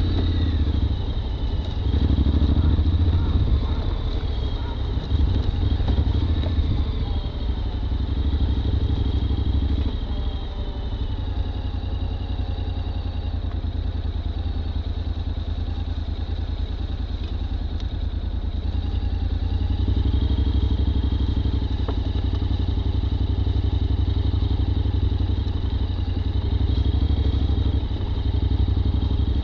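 Honda X-ADV's 745 cc parallel-twin engine running at low trail speed, its note swelling a few times as the throttle opens, with light clatter from the bike over the rough leafy track.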